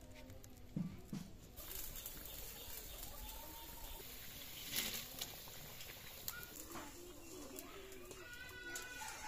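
Faint sounds of a fish curry simmering in an iron kadai over a wood fire: a soft steady hiss with scattered small crackles and pops. Birds call in the background, with chirps near the end.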